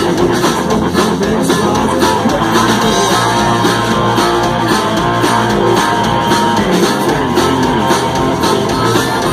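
Live rock band playing an instrumental passage: electric guitars, bass guitar and drum kit, with a harmonica playing over them.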